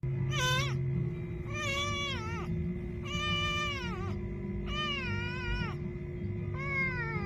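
Orange-and-white kitten meowing five times, high-pitched calls about a second and a half apart, each rising and then falling away at the end.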